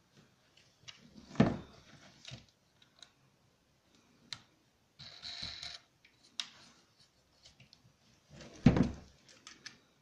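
Wooden vacuum-former frame being handled while fasteners are fitted onto its screws: scattered light clicks, two louder knocks about a second and a half in and near nine seconds, and a short scratchy rustle around the middle.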